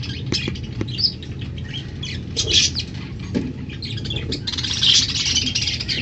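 Budgerigars squawking and chattering in short, scratchy calls, thickest about two and a half seconds in and again around five seconds.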